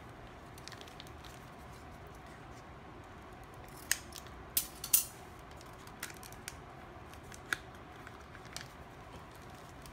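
Scissors snipping open a plastic sachet: a handful of short, sharp snips and clicks starting about four seconds in, the loudest near five seconds, with lighter clicks following.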